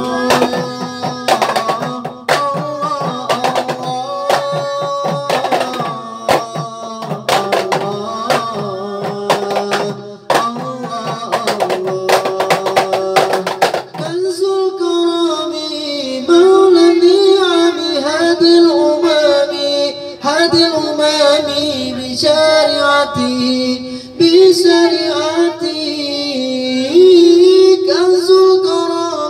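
Marawis practice: frame drums beaten in a fast rhythm under a sung line through a microphone. About halfway through the drumming drops away, leaving a single voice singing an ornamented, wavering melody over a steady held tone.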